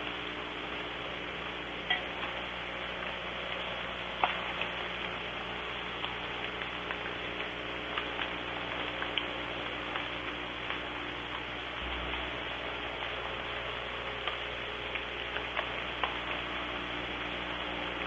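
Soft rain falling: a steady hiss with scattered ticks of single drops, over a faint steady electrical hum.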